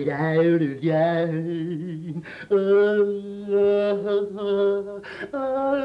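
A man singing without accompaniment in a drawn-out, chant-like style. He sings in short phrases and holds one long, steady note from about two and a half seconds in until about five seconds in.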